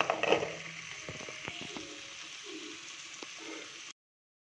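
Stainless steel pot of vegetable broth boiling on the stove, a steady bubbling hiss, with a few light knocks a second or so in; the sound cuts out abruptly near the end.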